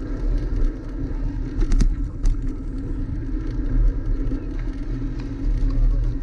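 Bicycle riding along a wet asphalt bike lane, heard on a bike-mounted action camera: a steady low rumble of tyre and wind noise, with two sharp clicks about two seconds in.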